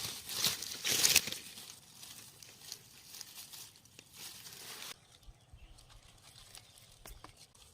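Dry, withered leaves and undergrowth crackling and rustling as they are handled, loudest in the first second or so, then fading to softer rustling and a few light clicks.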